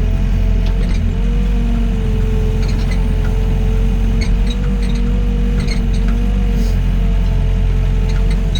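Doosan DX55 mini excavator's diesel engine running steadily, with a hydraulic whine that wavers slightly in pitch and a few light clicks.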